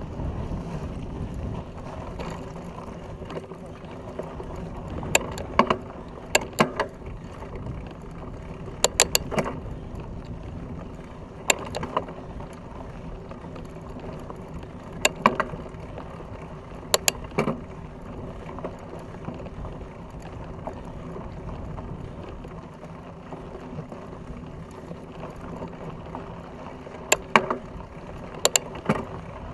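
Fat bike riding over a rough dirt and gravel track, heard from a camera mounted on the bike: a steady rumble of tyres and wind noise. Every few seconds there are sharp knocks and clicks, often in quick pairs, as the bike jolts over the bumps.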